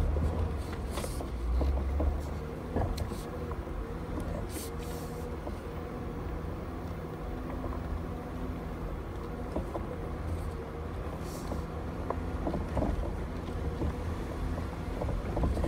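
A 4x4's engine running low and steady, heard from inside the cab, as the vehicle creeps down a rough grassy trail. A few light clicks and knocks come from the vehicle working over the uneven ground.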